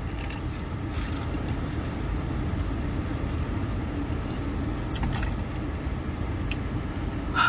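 Steady low rumble of a car engine idling, heard from inside the car, with a few light clicks and a sharper click just before the end.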